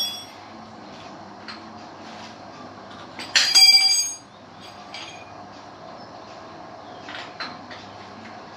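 Metal tools and parts clinking during motorcycle workshop work: a loud ringing metallic clang about three and a half seconds in, with a few lighter clinks and taps over a steady hum.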